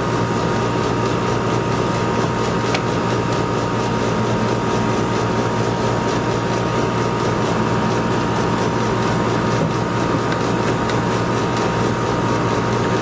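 Outdoor air-conditioner condenser unit running: a steady hum and fan noise with a constant high whine.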